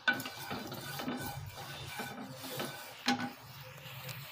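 Wooden spatula rubbing and scraping across the bottom of a non-stick kadai as it spreads heating oil, with a sharper knock at the start and another about three seconds in.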